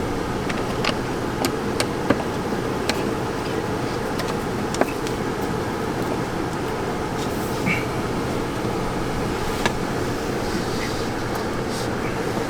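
Light, irregular clicks and taps of screws and a hand driver being worked into the plastic dash trim of a Jeep Gladiator, over a steady low rumble. The two loudest clicks come about two and five seconds in.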